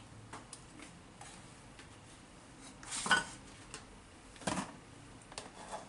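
Kitchen knife and wooden cutting board: a few quiet taps and clicks, then two louder clatters about three and four and a half seconds in as the knife is laid down on the board and the onion slices are handled.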